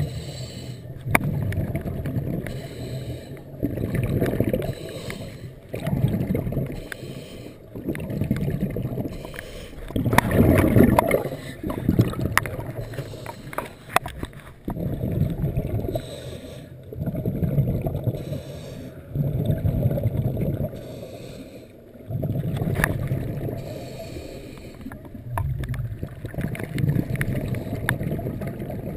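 Scuba diver's breathing through a regulator, heard muffled underwater: repeated surges of exhaled bubbles every two to three seconds, the longest and loudest about ten seconds in.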